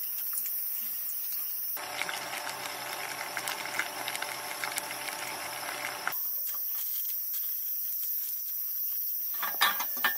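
Water heating in a small electric cooking pot, bubbling and hissing for about four seconds before stopping abruptly. Near the end, a few light metal clinks as a small wire-rack grill is handled.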